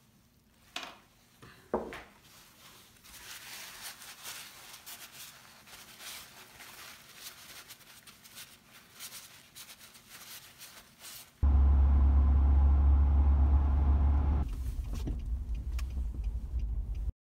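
A paper towel rubbing and rustling as it wipes over a small carved wooden rose, with two sharp clicks near the start. Past the middle, a loud, steady low rumble of a car heard from inside its cabin takes over. It drops in level about three seconds later and cuts off near the end.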